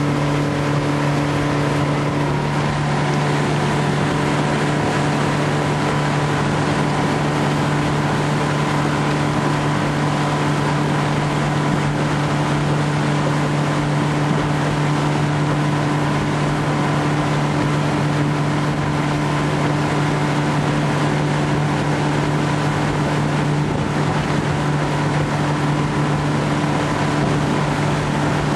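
115-horsepower outboard motor running steadily at cruising speed, a constant drone over a hiss of wind and water from the boat's motion.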